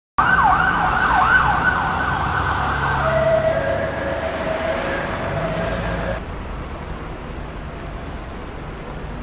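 Emergency vehicle siren in street traffic, starting suddenly with fast rising-and-falling yelp sweeps. It changes to a steadier tone about three seconds in, then stops about six seconds in, leaving the hum of traffic.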